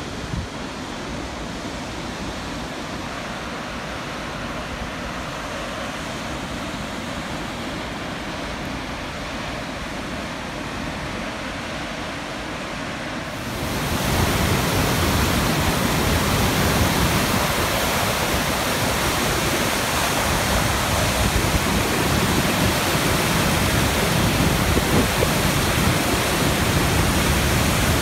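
River rapids rushing in heavy white water, a steady roar of water. About halfway through it jumps louder and brighter.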